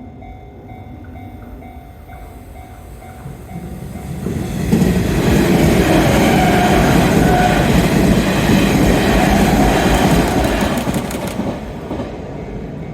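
A Nishitetsu 5000 series electric train passes a level crossing. It builds up over the first few seconds and is loud from about five seconds in to about eleven, with a quick run of wheel clacks over the rail joints just before it fades. Steady tones from the level crossing's warning bell are heard at the start, before the train drowns them.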